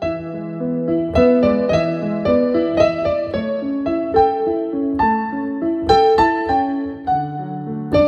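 Digital piano being played: melody notes struck about two a second over held lower notes, with a short dip in loudness at the very start before the phrase resumes.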